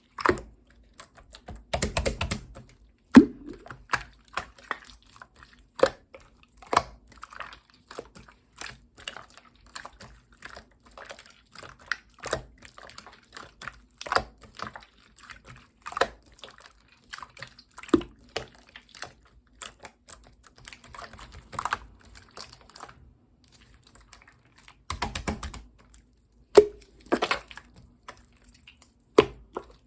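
Pearl marbling slime being pressed and squished by hand, giving many irregular sticky clicks and small wet pops. There are two longer squelching stretches, one shortly after the start and one toward the end.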